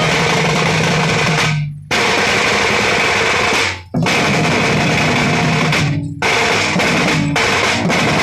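Band party playing loud instrumental music: drum kit with snare and cymbals driving under held notes. The music breaks off briefly four times and comes straight back in.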